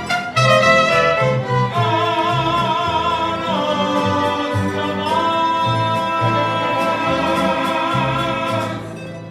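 Mariachi band playing, violins carrying a wavering melody over a stepping bass line. The music fades out near the end.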